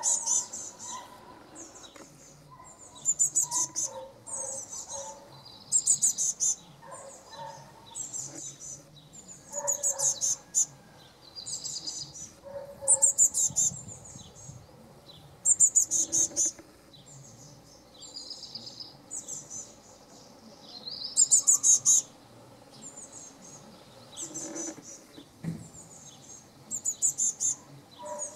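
Fledgling Eurasian blue tit calling: a burst of rapid, very high-pitched notes about every three seconds.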